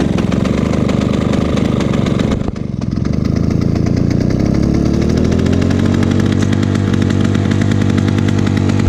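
1991 Lawn-Boy M Series mower's two-stroke engine running just after a hard start. It dips briefly about two and a half seconds in, then picks up and settles into a steady run.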